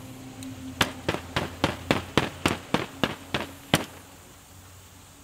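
A rapid run of about a dozen sharp knocks, roughly four a second, lasting about three seconds and then stopping.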